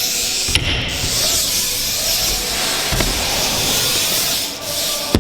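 BMX tyres rolling over a skatepark ramp, a steady hiss with a couple of faint clicks from the bike.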